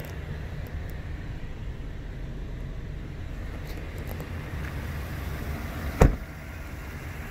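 A Chevrolet 2500 HD pickup's door slams shut once, sharply, about six seconds in, over a low steady rumble.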